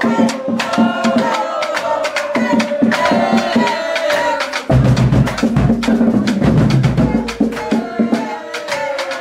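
HBCU marching band playing: brass horns over rapid, steady drumline strikes. About halfway through, the low brass and bass drums come in loudly underneath.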